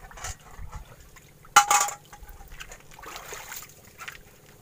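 Shallow seawater splashing and trickling in irregular bursts, with a short louder sound about one and a half seconds in.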